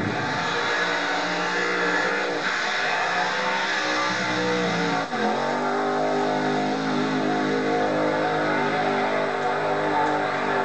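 Altered-class drag car's engine held at high revs during a tyre-smoking burnout. Its pitch dips briefly about five seconds in, then climbs back.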